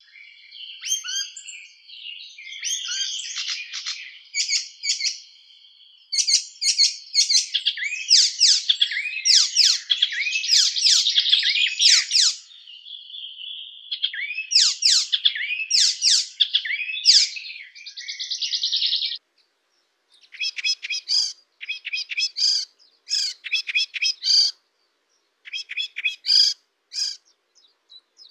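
Hippolais warbler singing a fast, chattering song of varied sweeping and clicking notes with a short buzzy trill. The song stops briefly twice, about two-thirds of the way through and again near the end, and after the first stop it becomes sparser and more clipped.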